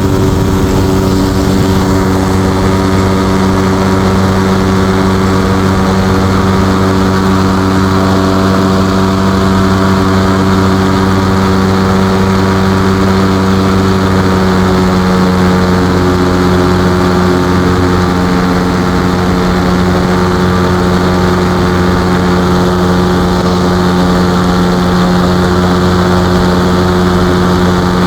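Ultralight aircraft engine and propeller running steadily, a loud even drone; the pitch dips slightly about halfway through.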